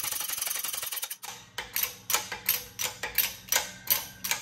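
Hydraulic shop press pressing an oil seal into an aluminium overdrive housing: a steady hiss with fast ticking that stops about a second in, then a run of sharp ringing clicks, roughly three a second.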